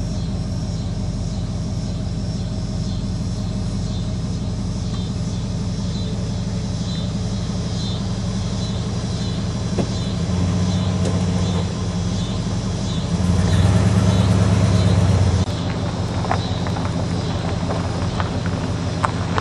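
1972 Buick Riviera's 455 cubic-inch V8 running at a steady low idle through its factory dual exhausts. It grows louder twice for a second or two, about ten and fourteen seconds in, without a change in pitch. Scattered ticks and crackles come in near the end.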